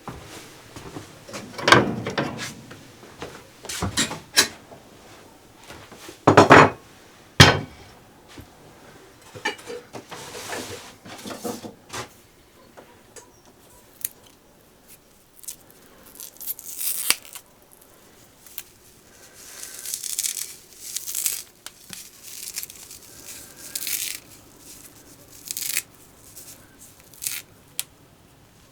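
Kitchen work: irregular knocks and clatter of kitchenware, and in the later part stretches of tearing and rustling.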